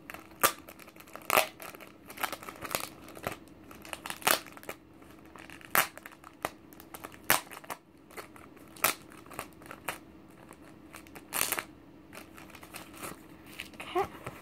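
Packaging being crinkled and rustled by hand while a sticker decal is unwrapped, with irregular sharp crackles every second or so.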